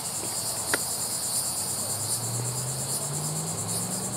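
Steady high-pitched chorus of insects, pulsing evenly. Underneath, a faint low engine drone rises slowly in pitch from about a second and a half in.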